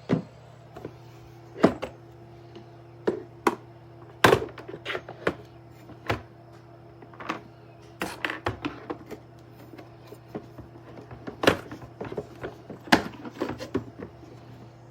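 A series of irregular sharp knocks and clicks, some loud, spaced unevenly over a steady low hum.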